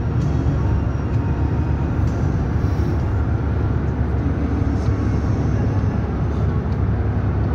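Steady road and engine rumble heard inside a moving car's cabin at highway speed.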